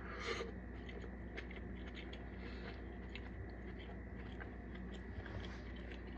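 A person chewing food quietly, with faint scattered small clicks from the mouth and hands, over a steady low hum.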